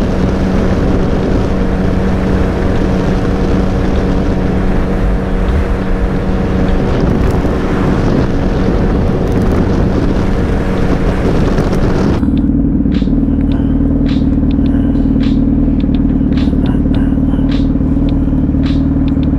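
Suzuki Hayabusa's inline-four engine running under way, with wind rushing over the microphone. About twelve seconds in, the wind noise cuts off suddenly, leaving a steady low hum with scattered light clicks.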